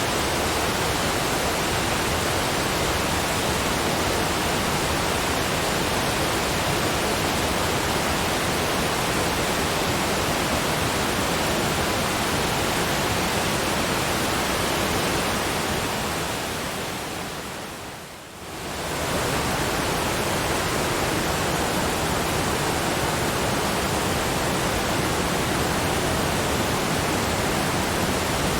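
Steady, even rush of a waterfall, like white noise. Over a couple of seconds past the middle it fades down, then swells quickly back to full.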